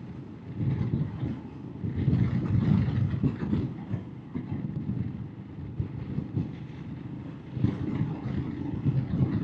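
Royal Enfield Himalayan's single-cylinder engine running as the motorcycle is ridden, its low drone rising and falling, with wind rushing over the microphone.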